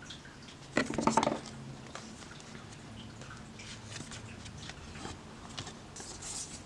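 Cardboard game boards being handled and shuffled, with one short scraping rustle about a second in, then faint taps and rustles.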